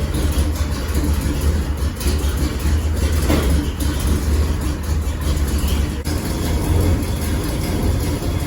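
Big-block V8 of a 1979 GMC Caballero running steadily with a loud, rough rumble. The engine has several bad exhaust leaks at the headers, which make it louder and rougher than a sealed exhaust.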